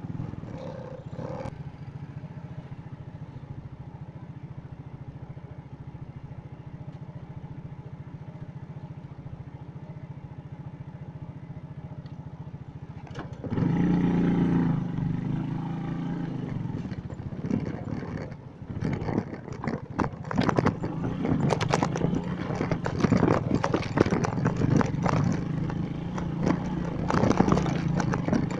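Motorcycle engine running at low revs, then pulling harder about halfway through as the bike climbs a rough, stony off-road track, with rapid clatter and knocks from stones and the bike jolting over the rocks.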